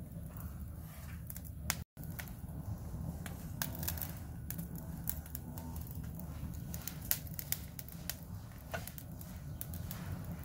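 Wood logs burning in an open Big Green Egg kamado grill, crackling with irregular sharp pops over a low steady rumble.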